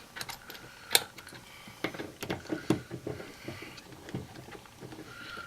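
Irregular metallic clicks and knocks of hand tools as a seatbelt buckle is bolted to the car's floor, with one sharp knock about a second in and a quick run of clicks a little later.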